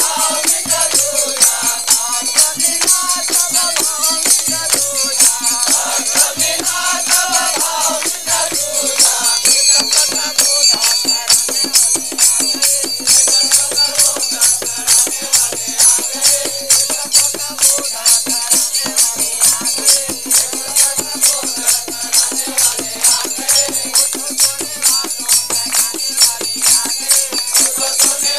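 Devotional Hindi bhajan sung to a fast, steady jingling beat of hand percussion, with a regular low drum-like beat beneath. The singing stands out most clearly in the first several seconds.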